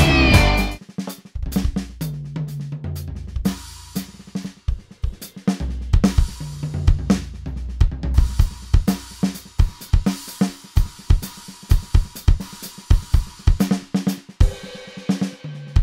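ATV aDrums Artist electronic drum kit played as a groove, its module sounding the 'Classic '70s' sampled acoustic kit: kick, snare, hi-hat and cymbal hits in a steady rhythm, with sustained low notes under them. A music track dies away in the first second.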